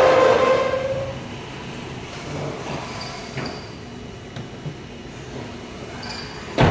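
Vehicle on a dynamometer winding down after an acceleration run: the sound falls in pitch and fades over the first second or so, leaving a low rumble. A single sharp bang comes near the end.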